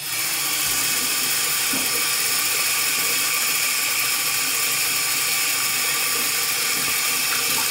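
Bathroom sink tap turned on and water running steadily into the basin, a loud even hiss.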